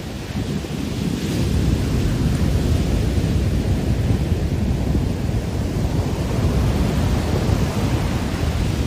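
Heavy ocean surf breaking and washing up a sandy beach, a steady roar with wind buffeting the microphone. The low rumble swells about a second in and stays loud.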